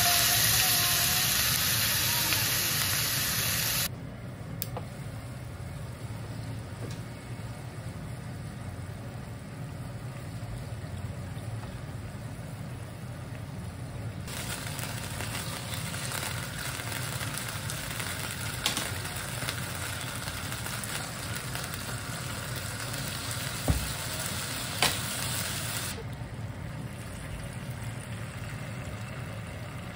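Chicken thigh sizzling in hot oil in a nonstick frying pan just after being flipped. The sizzle is loud for the first few seconds, drops after about four seconds, and rises again for a stretch in the middle, with a few light clicks and a steady low hum beneath.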